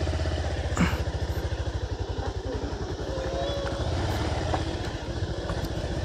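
Motorcycle engine running steadily with a fast, even low putter, and one sharp knock about a second in.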